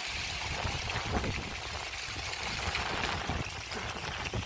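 Gusty wind of a dust storm rushing past and buffeting the microphone: a steady hiss over an uneven low rumble.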